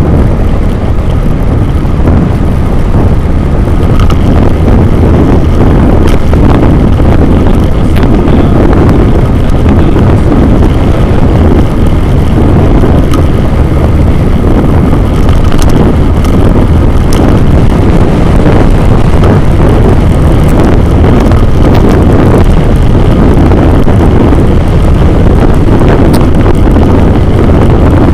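Steady, loud wind buffeting on an action camera's microphone while riding a moving vehicle along a road, with vehicle and road noise rumbling underneath.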